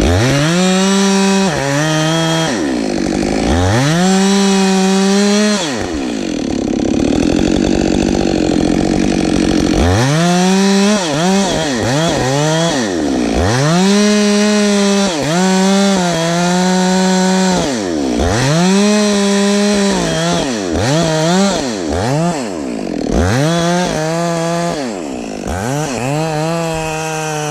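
Ported Husqvarna 572XP two-stroke chainsaw revved to full throttle again and again, the pitch sweeping up, holding high and dropping back, with quick short blips in between. For a few seconds early on the clear high tone gives way to a rougher, lower sound.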